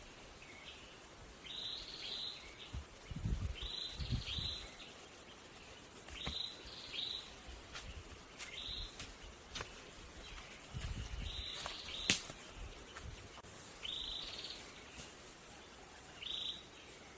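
A bird calling over and over in short paired chirps, a phrase every second or two. Now and then a sharp click or knock, the loudest about twelve seconds in, and a few dull low thuds.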